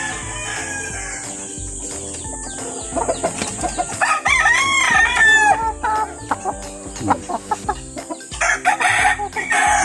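Gamecock roosters crowing: one long crow about four seconds in, and another near the end, with short clucks between.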